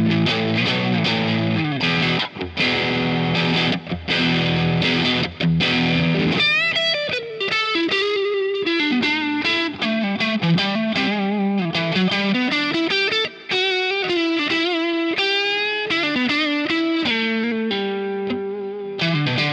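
Squier Affinity Series Stratocaster electric guitar played through distortion: chopped, chugging chords for about the first six seconds, then a single-note lead line with string bends and vibrato, returning to chords near the end.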